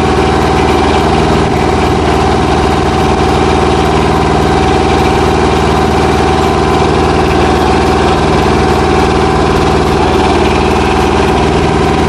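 Iseki crawler combine harvester's engine running steadily after starting, with no change in speed.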